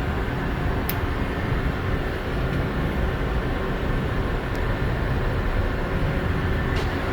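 Hwacheon 17 x 40 gap-bed lathe running steadily with its power feed engaged, a smooth, even mechanical hum from spindle and gearing. A faint click about a second in and another near the end.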